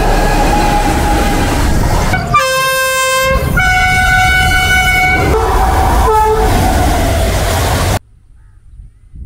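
Indian Railways train running past with a steady rumble, its locomotive horn sounding a long two-note blast a couple of seconds in, then a short toot. The train sound cuts off abruptly near the end.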